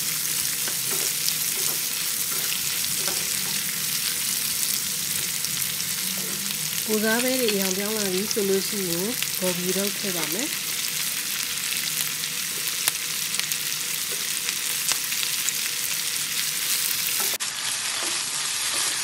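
Prawns and vegetables stir-frying in a hot non-stick wok: a steady sizzle with the spatula scraping and ticking against the pan. A voice sounds briefly in the background midway.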